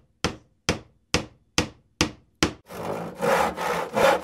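Logo-intro sound effect: six sharp hammer-like knocks, about two a second, then a rough rubbing, scraping noise from a little under three seconds in.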